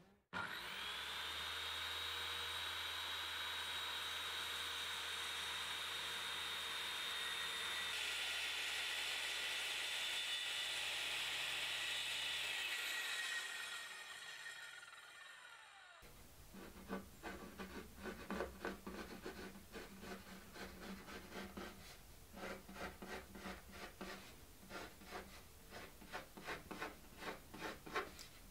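Circular saw cutting through MDF sheet with a steady high whine, then the blade spins down with falling pitch. It is followed by a run of quick, uneven scraping strokes on the board.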